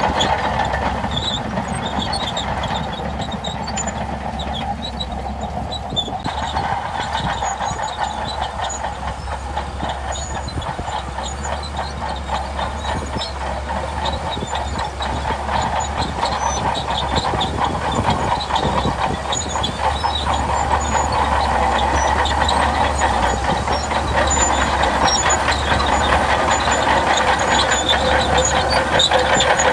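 Crawler bulldozer's diesel engine running under load, with the steel tracks clanking and rattling continuously; it grows louder in the second half.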